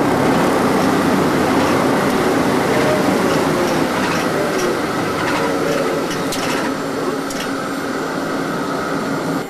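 SR.N4 hovercraft's gas turbines, propellers and lift fans running, heard inside the cockpit as a steady, loud mechanical noise that gradually gets quieter while the craft is on its landing pad.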